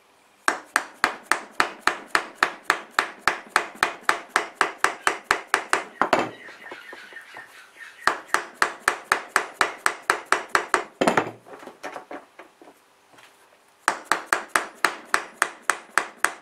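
Soft-faced mallet tapping rapidly on a Nissan Patrol TX12A transfer case, about four light blows a second, in three runs with short pauses between. The blows drive the two case halves together over the partly seated lay shaft.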